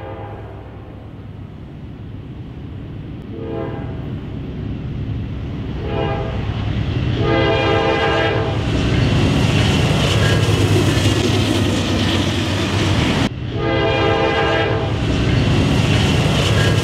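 Air horn of a Norfolk Southern GE C40-9W diesel locomotive blowing a series of blasts for a grade crossing: short ones, then two long ones about 7 and 13 seconds in. Under the horn, the rumble of the locomotives' diesel engines and wheels on the rail grows louder as the train comes close and passes.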